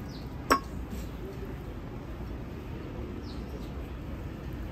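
Restaurant room noise with faint background chatter, and a single sharp clink about half a second in.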